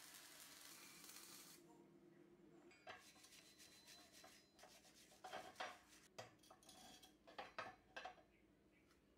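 Arc welding crackles steadily for about a second and a half, then cuts off. After that, a flat-bladed chipping tool scrapes and taps slag off the fresh welds on a small steel bracket: a run of short metal scrapes and clicks, busiest a little past the middle.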